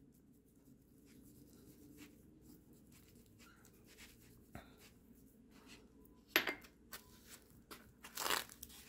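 Faint rustling and crinkling of plastic wrap and a foam meat tray as hands rub and handle a raw steak on it, with a few louder crinkles in the last few seconds.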